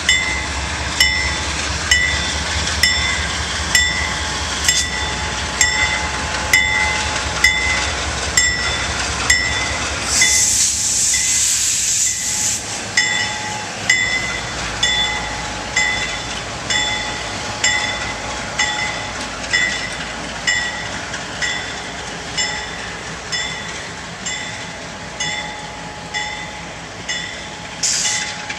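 Diesel freight locomotives rumbling past while a railroad bell rings steadily, about one strike a second. A loud burst of air hiss comes about ten seconds in and lasts a couple of seconds, with a short one near the end.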